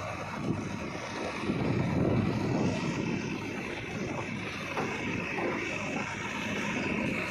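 Diesel engine of a JCB 3DX backhoe loader running under load as it works, growing louder for a second or two about one and a half seconds in.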